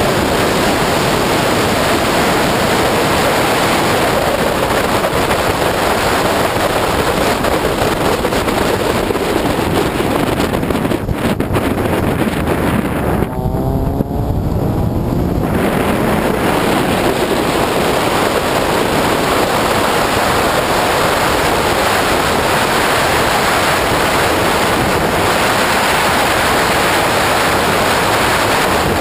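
Opel Speedster at speed on a circuit, heard as a loud, steady rush of wind on the microphone over the engine and road noise. About halfway through, the hiss drops away for a couple of seconds as the car slows for a corner, and the engine note comes through with a shifting pitch before the rush returns.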